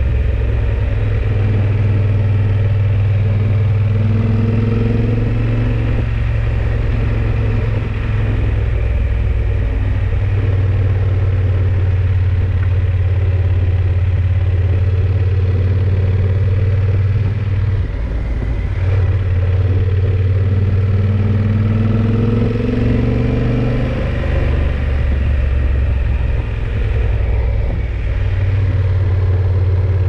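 Yamaha XT1200Z Super Ténéré's parallel-twin engine running while riding, the pitch rising twice as it accelerates, with shifts in engine note between.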